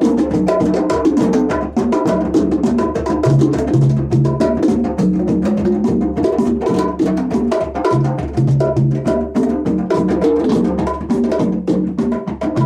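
Percussion music of fast hand drumming, most likely djembe, played as dense, even sharp strikes over a low pitched figure that repeats every few seconds.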